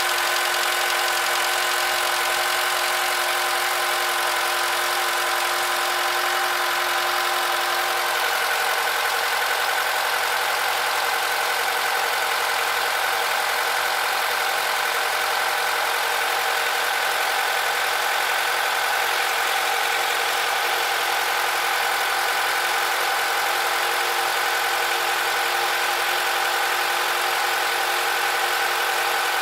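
Honda K20Z2 2.0-litre four-cylinder engine idling steadily, with an extraneous noise in it. Several steady whining tones run over the idle; the lowest of them fades out about eight seconds in.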